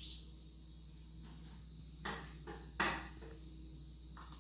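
A few light clicks and taps as round biscuits are set down one at a time in a glass baking dish, the loudest a little under three seconds in.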